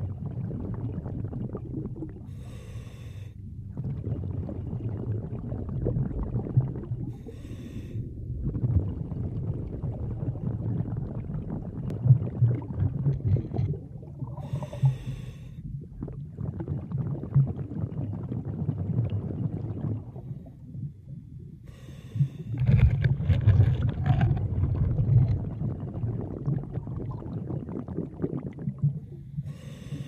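Underwater sound of a swimmer moving through shallow water: a steady low rumble of water around the camera, with a breath heard about every six to seven seconds as a short hissing burst.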